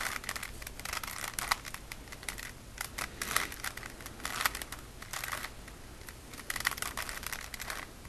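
Plastic Rubik's Cube layers being twisted by hand: bursts of quick clicking and clacking turns with short pauses between them. This is an eight-turn corner-rotation sequence being worked through.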